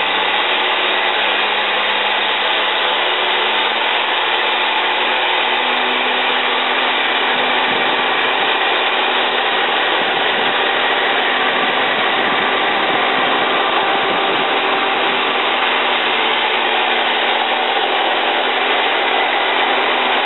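CMI Hurricane C250 tracked forestry mulcher running under load, its front mulcher head grinding wood and brush into chips: a loud, steady machine noise.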